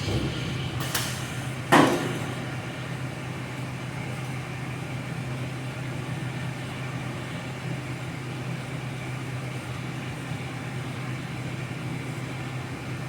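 Steady hum of a plasma burn table left running in a sheet-metal duct shop, with one loud, sharp bang just under two seconds in.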